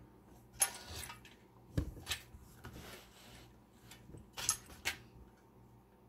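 Short metallic scrapes and clicks from the key and plug of a Mul-T-Lock MT5+ cylinder being worked by hand as its pins are dropped out: a scratchy rasp about half a second in, a click with a light knock near two seconds, and two more scrapes just past four seconds.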